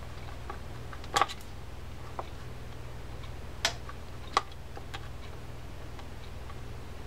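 A few light metallic clicks of a micro screwdriver and a tiny screw against the metal parts of an opened D.A.M. Quick spinning reel's gearbox while the swing-arm screw is fitted. The clearest is a quick double click about a second in, with two more a few seconds later, over a steady low hum.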